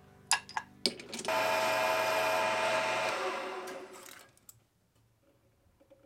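Small metal lathe running with a steady machine whine, a few clicks just before it starts. About three seconds in it stops and winds down, fading out over a second or so.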